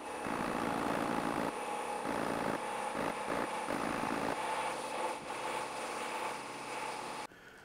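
Power sander running steadily against bare sheet steel, taking the high points off a panel being straightened. It stops abruptly near the end.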